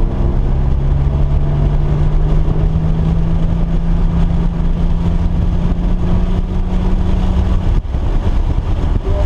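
Car engine running at a steady pitch that climbs slowly for several seconds, with a brief drop about eight seconds in.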